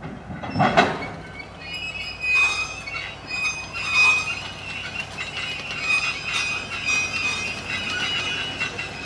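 Passenger coaches of a DRB1m diesel train rolling slowly past, wheels squealing steadily against the rails, with a loud knock about a second in and scattered lighter clicks.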